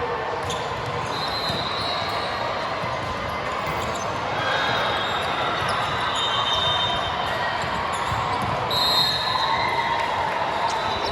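Gymnasium din during a volleyball match: a steady murmur of many voices with repeated thuds of volleyballs being hit and bouncing on the hard court.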